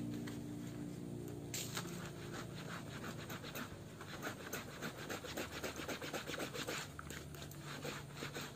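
Rubber-gloved hands scrubbing a wet, soapy football shirt: a quick, irregular run of rubbing strokes that starts about a second and a half in. The cracked printed logo and sponsor are being rubbed off the fabric with soapy water.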